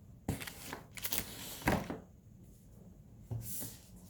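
1992-93 Upper Deck basketball card packs being handled: the pack wrapper crinkles and rustles in a few short bursts, with a sharper crackle about a second and a half in and another burst near the end.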